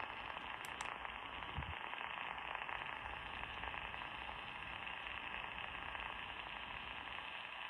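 Radio receiver giving a steady hiss of static with no program audio, a station's dead air, which the listener puts down to a transmitter problem.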